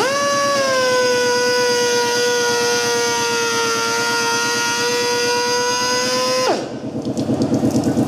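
Hand-held air-driven glass edging grinder running under load on a glass edge: a loud, steady high whine that sags slightly in pitch as it grinds. About six and a half seconds in the whine falls sharply and stops, and an even pulsing of about six beats a second follows.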